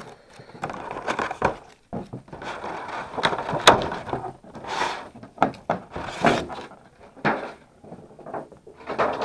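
Foil booster pack wrappers rustling and crinkling as they are handled, with light clicks and knocks against a clear plastic collector's box. One sharp click comes about three and a half seconds in.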